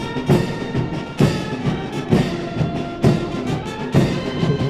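Orchestral music with a heavy drum beat about once a second under sustained chords.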